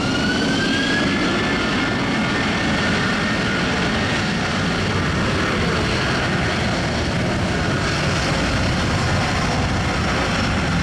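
Airbus A330 twin jet engines at high power on the runway. Their whine rises in pitch over the first couple of seconds and then settles into a steady, loud rushing noise.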